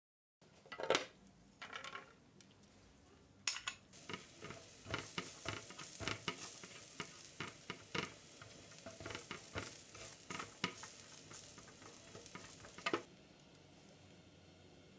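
Chicken burger patties sizzling in a hot grill pan. A few sharp knocks of a utensil at first, then a loud hiss about three and a half seconds in as the sizzling sets in and runs steadily with scattered clicks and taps, cutting off suddenly near the end.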